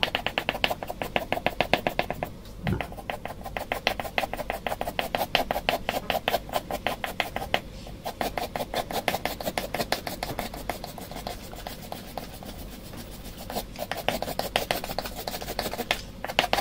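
Soft 6B graphite pencil scratching on drawing paper in rapid short strokes, several a second, with brief pauses, as grass blades are hatched in.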